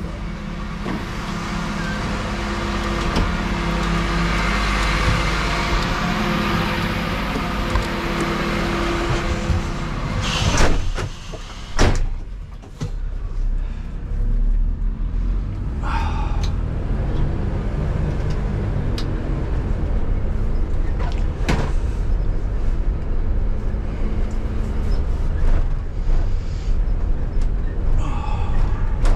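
Refuse truck's diesel engine running steadily, with two loud knocks around ten and twelve seconds in. After that comes the steadier sound of the engine and cab as the truck drives slowly over rough ground, with scattered small rattles and clicks.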